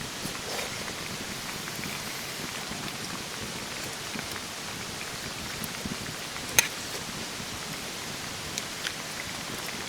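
Steady rushing noise of water, rain or a mountain stream, with scattered small ticks and one sharper snap about two-thirds of the way through.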